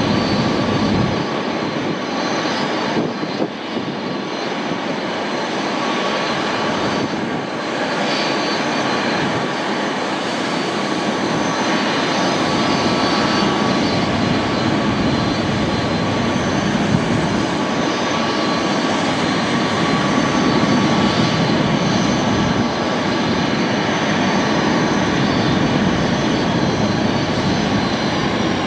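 Airbus A330-223's Pratt & Whitney PW4000 turbofans running at taxi idle: a steady rushing hum with a high, even whine. Near the end the highest whine begins to fall in pitch.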